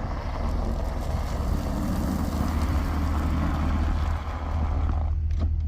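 Pickup truck running: a steady low rumble of engine and road noise with a hiss above it, the hiss dropping away briefly near the end.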